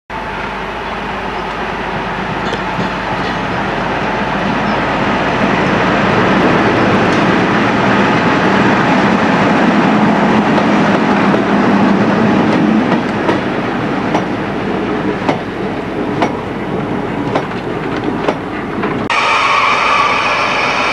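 British Rail Class 58 diesel locomotive with a Ruston 12-cylinder engine passing close with an engineering train: the engine noise builds to a peak, then the wagon wheels click over the rail joints. After a sudden change near the end, a Class 58 engine is idling.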